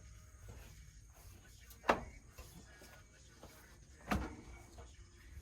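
Two sharp knocks about two seconds apart, the second trailing into a brief clatter, as the battery is worked loose from a Kubota tractor.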